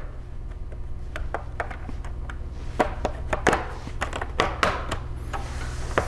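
Plastic bottom cover of an ASUS TUF FX706 laptop being pried loose with a plastic spudger: a run of sharp clicks and snaps as the cover's clips release along the seam, busiest in the middle of the stretch. A steady low hum sits underneath.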